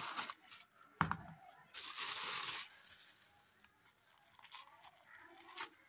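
Plastic wrapping and paper stuffing crinkling and rustling as a new sandal is unwrapped by hand in its cardboard shoebox. There is a knock about a second in, then a burst of rustling lasting about a second, then light scattered crackles.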